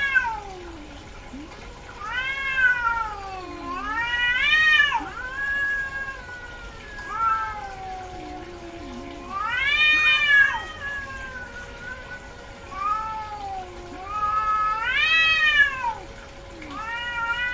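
Female cat in heat yowling: a series of long drawn-out calls, each rising and then falling in pitch, coming every two seconds or so.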